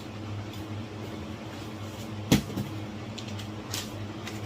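A single sharp knock about two seconds in, followed by a few light clicks, as a hard object is handled and set down, over a steady low hum.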